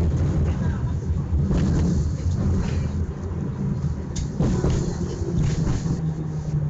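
Tram running along the street, heard from inside the car: a steady low rumble and hum, with a few brief knocks about four seconds in.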